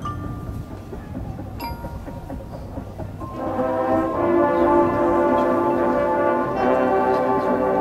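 Marching band brass section comes in about three seconds in with loud sustained chords that hold steadily. Before that, over quieter background noise, a struck chime rings out once.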